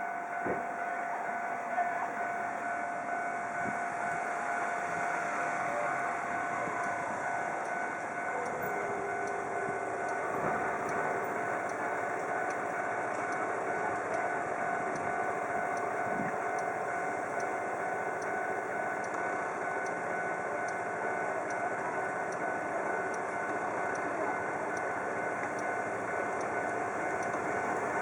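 Electric commuter train running through the station, a steady rumble under a whine that slides down in pitch about a quarter of the way in and then holds a lower note.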